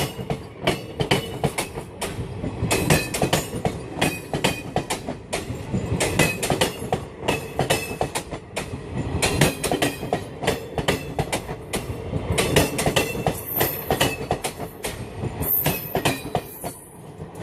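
Passenger coaches rolling over the points as the train crosses from the loop line to the main line, wheels clattering rapidly over the switch and rail joints, with short high-pitched flange squeals. The clatter eases near the end.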